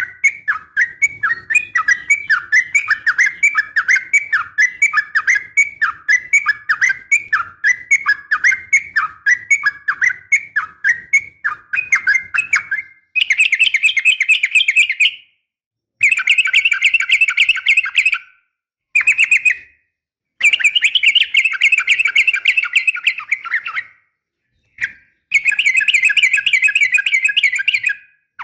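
Yellow-vented bulbul (trucukan) calls, a female calling to males. They start as a steady run of short chirps, about two a second, then change about halfway through to rapid chattering bursts with sudden cuts to silence between them.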